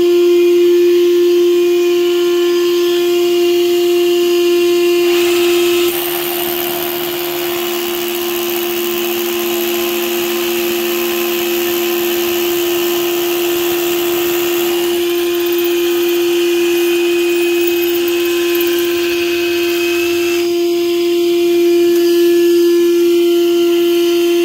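DeWalt shop vacuum running as a dust extractor with a steady, even whine. From about six seconds in, for about nine seconds, a DeWalt hammer drill with a long bit bores a hole through its dust shroud, adding a harsher, hissing grind on top of the vacuum.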